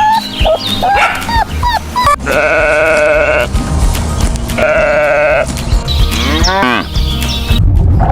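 Sheep bleating: two long, wavering bleats, the first about two seconds in and the second about four and a half seconds in.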